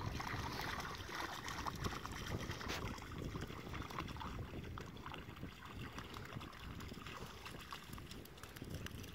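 Shallow river water splashing as a small shaggy dog wades and runs through it along the shore, a busy run of small irregular splashes.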